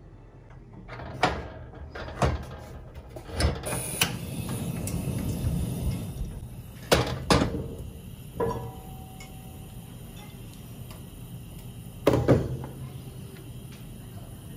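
Sharp knocks and clatter of a cast-iron skillet and kitchen utensils being handled at the stove as cooking begins, one knock leaving a short metallic ring. A steady hiss sets in about four seconds in.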